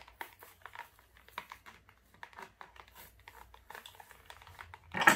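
Plastic blister pack of a die-cast toy car crinkling and clicking under fingers as it is worked open, with one loud sharp crackle near the end.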